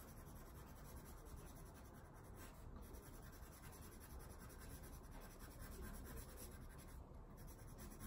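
Faint scratching of a colour pencil shading on sketchbook paper.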